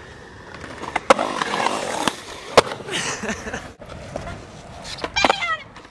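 Skateboard wheels rolling on concrete, with two sharp board impacts, one about a second in and one about two and a half seconds in.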